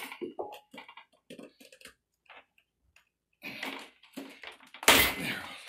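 Small clicks and creaks of a snap-in vinyl glazing bead being pried loose from a window sash with a chisel, with a loud sharp knock about five seconds in.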